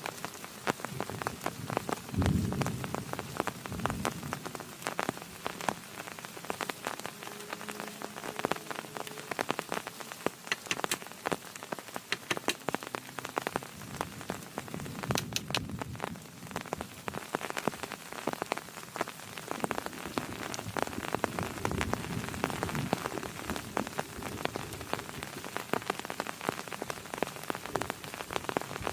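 Heavy rain falling steadily, a dense stream of individual drop hits striking a surface, with a few low rumbles rising and fading along the way.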